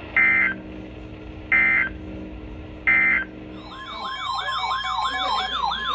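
Three short bursts of Emergency Alert System digital data tones, the end-of-message code closing a weather radio warning, over a low steady hum. About halfway through, an electronic warbling alert tone starts, sweeping up and down about three times a second over a steady tone.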